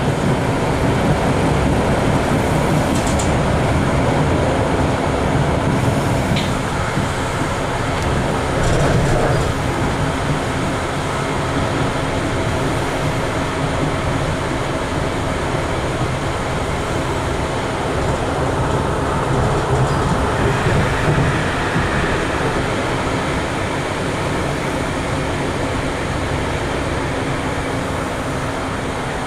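NGT8B low-floor tram running along the track, heard from inside the passenger cabin: a steady rumble of wheels and running gear under a low hum, with a few light clicks early on.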